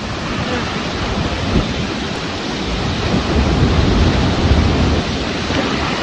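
Flash-flood torrent of muddy water rushing down a valley: a steady, loud rush of water with a deep rumble underneath.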